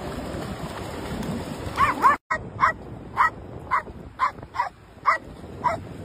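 A dog barking over and over, about two short barks a second, starting about two seconds in, over the steady rush of surf and wind.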